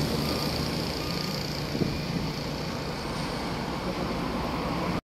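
Highway traffic passing close by: engine and tyre noise of a pickup and heavy trucks on the road, a steady rushing sound that cuts off suddenly near the end.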